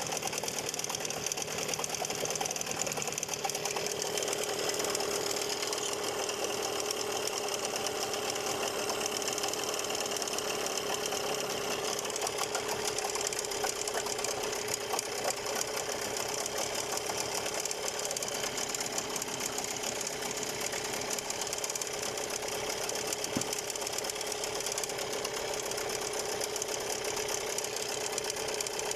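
Gladiator 9.8 outboard motor running steadily with an extraneous rattle, which the owner suspects is the ignition plate rattling.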